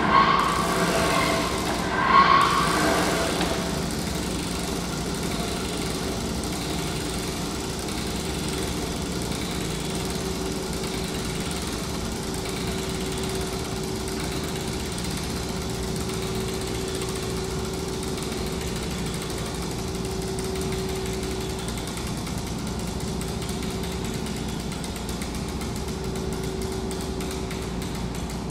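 A small machine running steadily with an even hum, likely the bicycle-wheel, sprocket and chain mechanism of a kinetic sculpture turning; it is louder and busier for the first few seconds, then settles.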